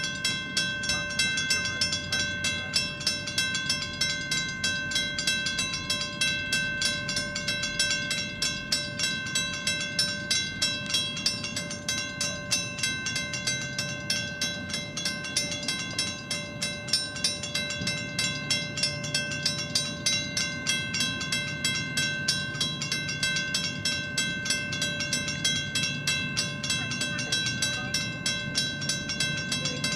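WC Hayes railroad-crossing bell on a temporary mast, ringing with rapid, even strokes and a lasting ring: the crossing warning is active for a train.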